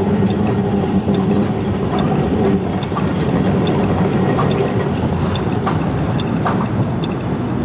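Electric articulated tram passing close by: a steady low hum and rolling noise that drops away about two and a half seconds in, leaving the rumble of street traffic. Faint ticks recur about once a second.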